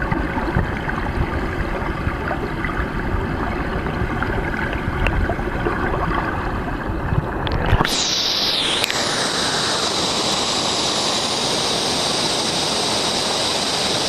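Waterfall, a steady rush of falling water. About eight seconds in the sound changes abruptly: the deep rumble drops away and it becomes a brighter, hissing rush.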